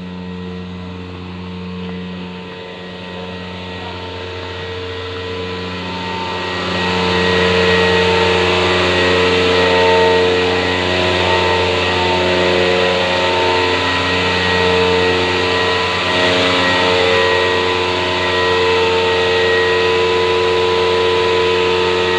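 Milking-parlor vacuum pump running with a steady motor hum that grows louder about seven seconds in.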